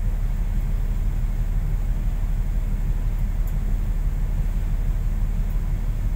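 A steady low rumble at an even level, with no distinct events.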